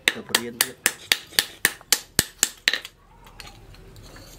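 Hand hammer striking red-hot steel on a post anvil, forging a chisel blade: a steady run of sharp metallic blows, about four a second, that stops a little under three seconds in.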